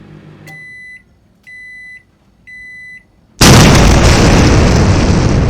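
Three electronic beeps about a second apart, then a sudden loud explosion-like blast that slowly dies away.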